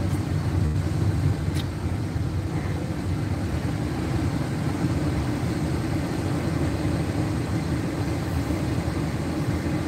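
Car cabin noise while driving slowly in city traffic: a steady low rumble of engine and tyres, with one short click about a second and a half in.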